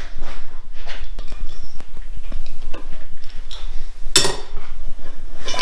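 Metal hand tools clinking and clattering together as a wrench is picked out, with a sharp metallic clank about four seconds in.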